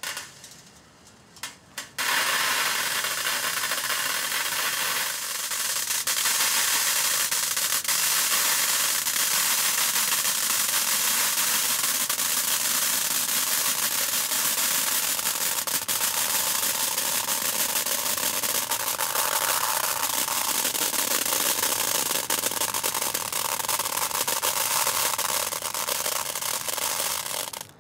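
Thousands of BBs poured from a plastic bag into a round metal tin, a dense, continuous rattling hiss of pellets hitting the metal and each other. A few scattered clicks come first, the steady pour starts about two seconds in, and it stops abruptly near the end.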